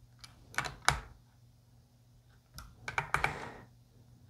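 Small wrench clicking on a tuner's bushing nut as it is snugged down on a guitar headstock: two short runs of light metallic clicks, one about half a second in and another about three seconds in.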